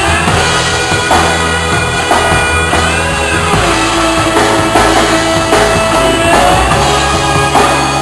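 A band playing rock-style instrumental music: a sustained lead melody sliding up and down in pitch over bass notes, with occasional drum hits.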